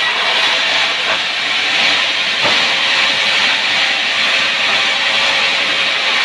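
Wood saw cutting timber: a loud, steady hissing noise with no pitch changes, with a couple of faint knocks about one and two and a half seconds in.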